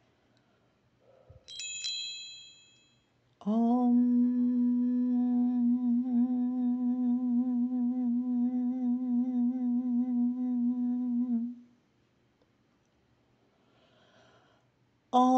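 A small bell rings once and dies away. A person then hums one long steady note with a slight waver for about eight seconds, and a second long hummed note begins near the end.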